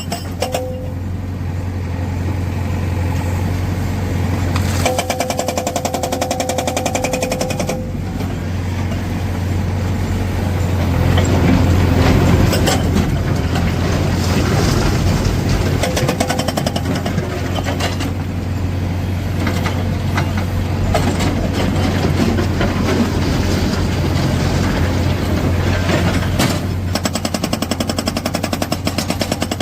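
Tata Hitachi Shinrai backhoe loader's diesel engine running under load while its hydraulic rock breaker hammers in rapid bursts, starting and stopping several times.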